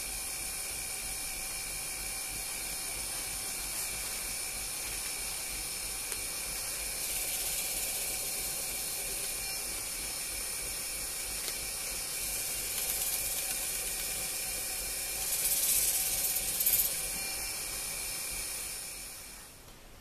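Wood lathe running steadily with a bowl spinning on it, a steady motor whine throughout. A cloth loaded with abrasive paste pressed against the spinning wood adds a hissing rub that swells several times and is loudest a few seconds before the end; just before the end the lathe stops and the sound falls away.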